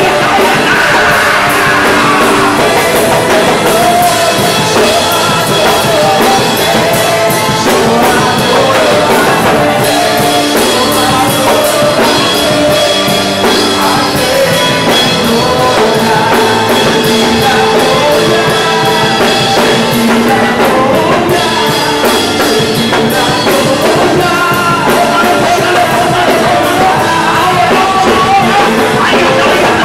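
Loud live worship music: a man singing into a handheld microphone over a band, running without a break.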